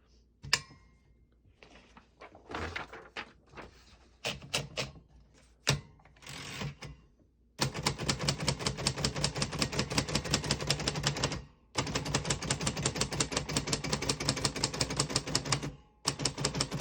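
Keys of a 1943 Royal Arrow manual portable typewriter being typed fast. First come a few scattered clicks and knocks from the mechanism, then from about seven and a half seconds in a rapid run of keystrokes, broken twice by short pauses.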